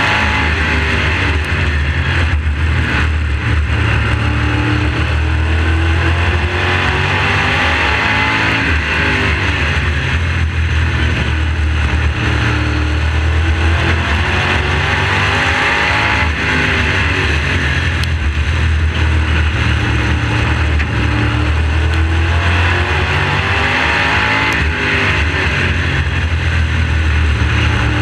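Modified race car's carbureted engine running hard, picked up by an onboard camera mounted just behind it. The engine pitch rises and falls about every seven seconds, climbing as the car accelerates on the straights and dipping as it backs off into the turns.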